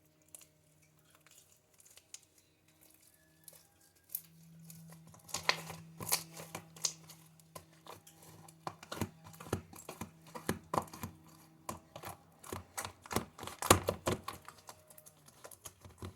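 Slime being squished and pulled apart by hand, making irregular sticky clicks and crackles that start about five seconds in and grow denser. A faint steady hum sits underneath.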